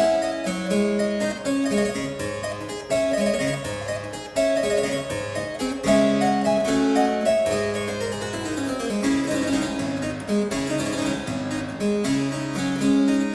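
Harpsichord music: a quick run of plucked notes over a moving bass line, playing without a break.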